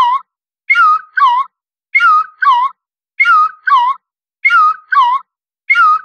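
A loud, high two-note whistling squeak, each note wavering in pitch, repeated in evenly spaced pairs about every second and a quarter, five times over.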